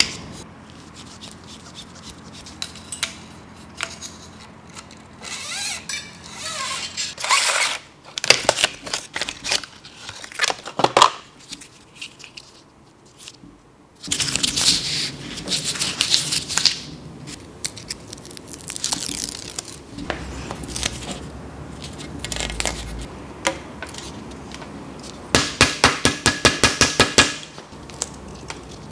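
Hand work on a road bike's handlebar and its parts: scattered clicks, taps and scrapes of small plastic and metal parts, and rustling. Near the end comes a rapid, even run of clicks, about eight a second, lasting about two seconds.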